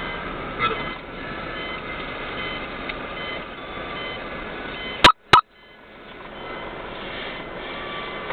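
Car interior noise while driving in city traffic: steady engine and road noise, with faint high beeps repeating about twice a second. About five seconds in, two sharp clicks a quarter second apart; the sound then drops out and fades back in.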